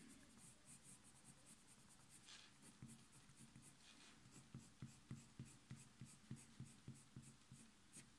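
Faint scratching of a coloured pencil on sketchbook paper in short, quick shading strokes, irregular at first and then settling into about three strokes a second. The strokes are laying darker shadow into a drawn lock of hair.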